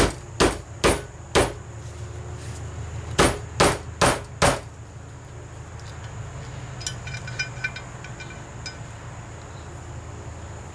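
A transmission valve body knocked against a dead-blow mallet in two sets of four sharp knocks, about two a second, to jar a sticking valve out of its bore. A few seconds later come light metallic clinks of small parts.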